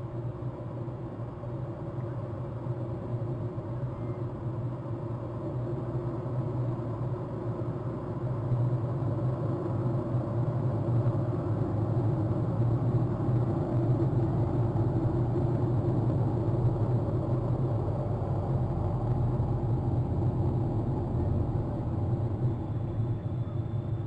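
Steady low rumble that swells about eight seconds in and holds.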